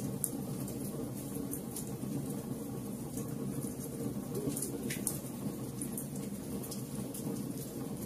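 Wood logs burning in a fireplace: a steady low rumble of flames with irregular sharp crackles and pops, one louder pop about five seconds in.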